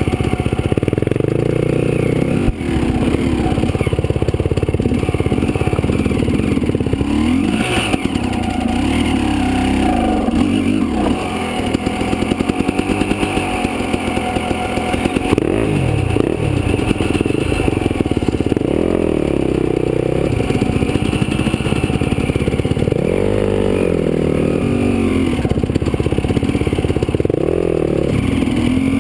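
Dirt bike engine running at low speed, its revs rising and falling again and again with the throttle, with clatter and scraping from the rocky ground.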